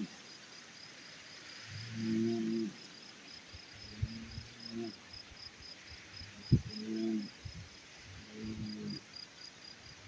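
Crickets chirping in a steady, rapid high pulse, over low pitched calls that recur every two seconds or so, and a single sharp thump about six and a half seconds in.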